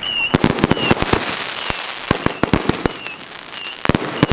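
Consumer fireworks going off in rapid succession: many sharp bangs and pops over a crackling haze, with several short high whistles among them.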